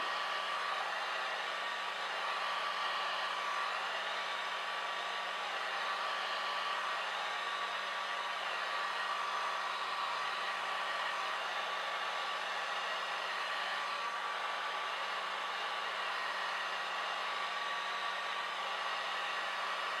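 Small handheld hair dryer running steadily: an even rush of air with a thin, steady whine.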